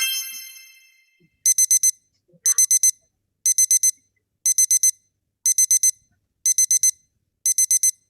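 Digital alarm clock beeping in quick groups of four, one group about every second. It opens with a single ringing chime that fades out over about a second.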